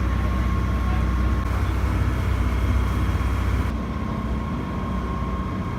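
Engine running steadily: a low hum with a thin steady whine above it, easing slightly about four seconds in.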